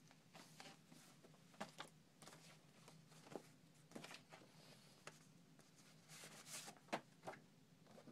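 Faint rustling and tapping of paper and card as old photo stills, folders and a manila envelope are handled and shuffled: scattered short rustles, with the sharpest tap about seven seconds in. A faint steady low hum runs underneath.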